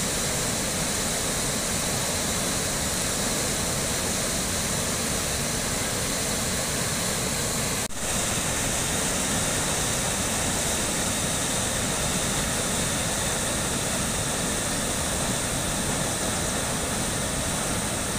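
Flooded river water rushing through the open sluice shutters and over the weir of a dam: a loud, steady rush of turbulent water, with a brief break about eight seconds in.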